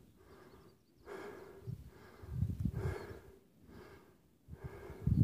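A tired hiker breathing hard after a long uphill climb, one breath about every two seconds.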